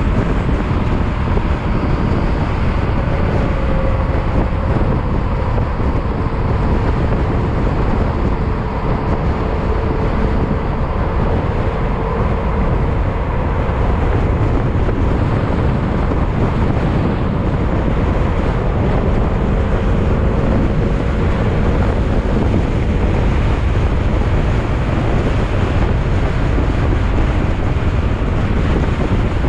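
Yamaha XMAX maxi-scooter's single-cylinder engine running at steady road speed, its note drifting gently up and down, under heavy wind noise on the microphone.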